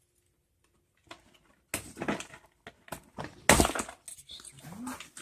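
Plastic packaging and zip ties being worked on by hand: a series of sharp crackles and clacks after a quiet first second, the loudest about three and a half seconds in.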